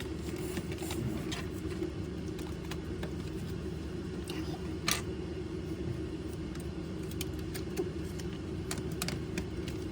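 Small plastic parts of a toy blaster being handled and fitted inside its shell: scattered light clicks and rattles, the sharpest about halfway through, over a steady low background hum.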